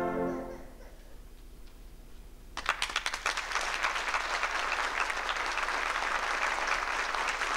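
A concert wind band's final held chord dies away in the hall's reverberation. After about two seconds of quiet, audience applause breaks out suddenly and carries on steadily.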